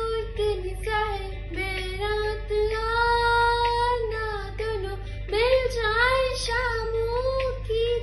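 A girl singing solo, drawing out long sustained notes with no clear words, the pitch sliding between them and wavering in a strong vibrato from about five seconds in.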